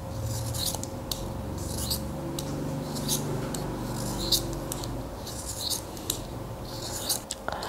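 Knife blade shaving the wooden casing of a hard pencil, a dry scraping stroke roughly one and a half times a second, each stroke peeling off a curl of wood.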